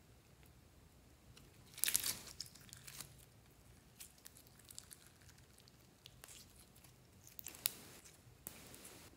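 Clear glitter slime being handled, stretched and pulled apart by hand, giving bursts of small crackles and pops, loudest about two seconds in. A single sharp click comes near the end.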